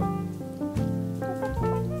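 Instrumental background music, a melody of separate pitched notes changing every fraction of a second.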